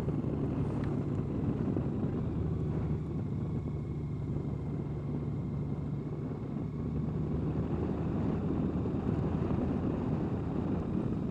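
Honda Gold Wing's flat-six engine running at a steady cruise, a low even hum, mixed with wind and road noise. The engine eases off slightly a few seconds in and picks up again later.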